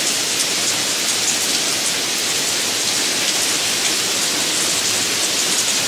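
Recorded rain sound effect playing back: a steady, even hiss of falling rain.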